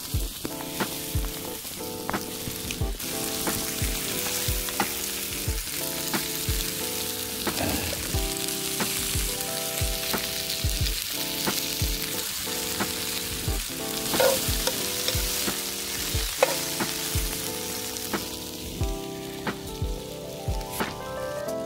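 Chunks of beef sizzling as they fry in a pan on a portable butane gas stove, a steady hiss, under background music with a steady beat.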